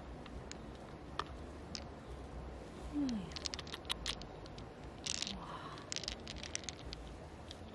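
Green pearls clicking and clattering against each other as they are scooped and rolled in cupped hands, in quick irregular clusters of small clicks, with a brief low falling sound about three seconds in.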